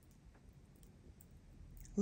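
Faint, sparse clicks from a plastic-covered diamond painting canvas being handled.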